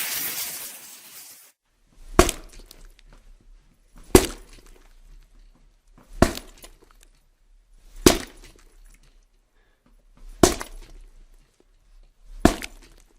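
Six sharp impacts about two seconds apart, each with a brief ring-out, with a faint low hum between them. They follow the fading tail of a loud hissing effect that dies away in the first second and a half.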